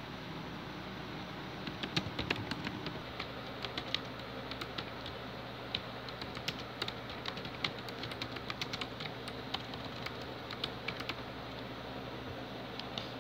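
Fast, irregular typing on a computer keyboard, the keystrokes starting about two seconds in and running in quick uneven runs over a steady low hum.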